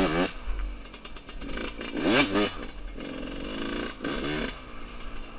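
A Yamaha YZ125's 125 cc single-cylinder two-stroke engine revving as the dirt bike pulls away, its pitch sweeping up and down with a sharp rise about two seconds in and a steadier run after that.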